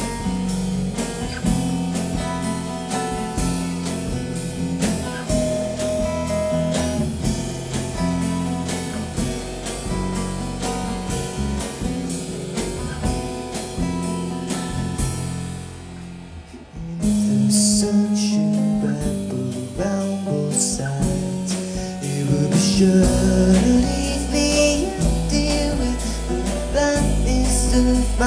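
Live trio of acoustic guitar, bass and drum kit playing a song, with a singer's voice over it. About sixteen seconds in the music drops off briefly, then comes back louder, with heavier bass and cymbal hits.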